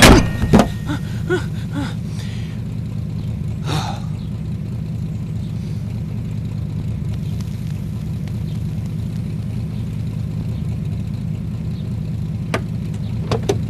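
Car engine idling with a steady low hum. A few knocks come in the first second, a short high squeak about four seconds in, and two clicks near the end.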